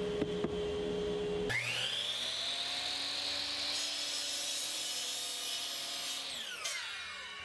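A steady hum for the first second and a half, then a power miter saw's motor starts with a rising whine and runs as the blade cuts through a pressure-treated 1x4 board. Near the end the motor is switched off and winds down with a falling whine.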